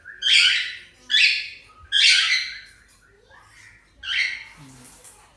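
Cockatiel squawking: four loud, harsh calls about a second apart, with a longer pause before the last one.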